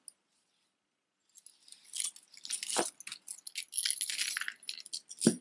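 Costume jewelry clinking and jangling as it is handled: metal chains and beads rattling against one another in quick small clicks, starting a little over a second in, with a couple of light knocks.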